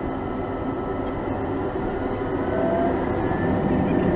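Cabin noise of a Boeing 737-800 rolling on the ground, its CFM56 engines running as a steady rumble with a faint rising whine, the level slowly building toward the end.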